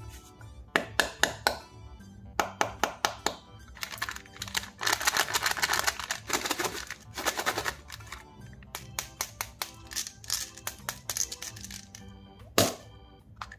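Hands handling small plastic candy containers and a foil sweet packet: runs of sharp plastic clicks, a dense crinkling rustle of the foil wrapper for a few seconds mid-way, more clicks, and one loud sharp click near the end. Soft background music plays underneath.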